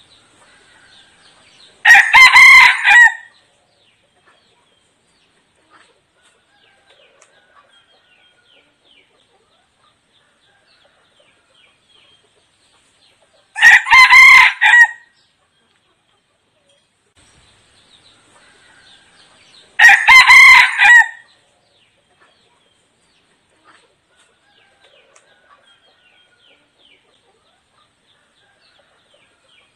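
Red junglefowl decoy rooster crowing three times: short crows of about a second and a half each, the first about two seconds in, the others near the middle and about two-thirds through. Faint chirping sounds between the crows.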